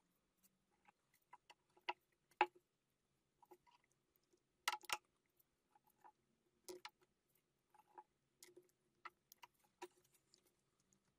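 Scattered light clicks and taps of small Bosch K-Jetronic fuel distributor parts, rubber seals and a metal valve piece, being handled and fitted with gloved hands. Sharper clicks come about two and a half seconds in and again near five seconds.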